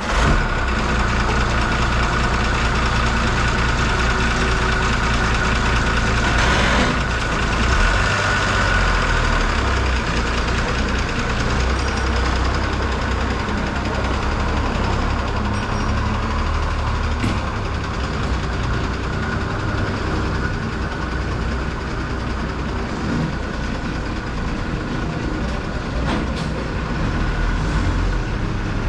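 Tata diesel bus engine idling steadily just after starting, a deep, even rumble with a faint whine above it.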